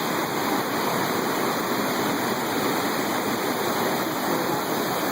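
Floodwater rushing steadily over a road, a loud continuous roar of fast-moving water.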